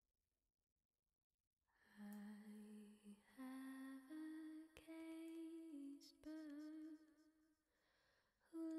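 A slow hummed melody of long held notes that step up and down in pitch. It comes in about two seconds in after near silence and breaks off briefly near the end before resuming.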